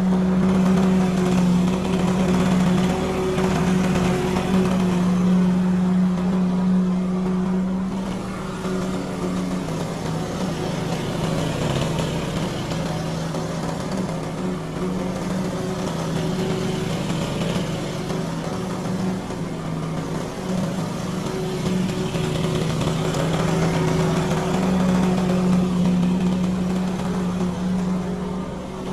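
Lawn mower engine running steadily, somewhat louder for the first several seconds and then a little quieter.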